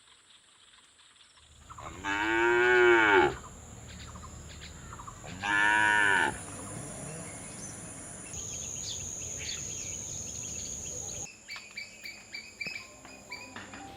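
A cow mooing twice: a long call about two seconds in and a shorter one about five and a half seconds in.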